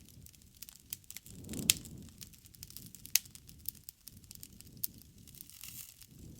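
Campfire crackling: irregular sharp pops and snaps of burning wood over a low rumble, with two louder snaps about one and a half and three seconds in.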